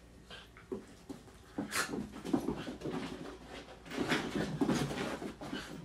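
Two Shetland sheepdogs play-wrestling: scuffling together with dog panting and short dog noises. It starts in earnest about a second and a half in and keeps on busily after that.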